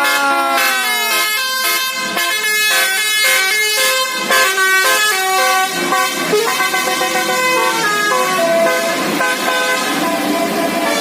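Bus 'telolet basuri' musical air horn playing a tune of quick stepped notes. A held multi-tone chord slides down in pitch about a second in.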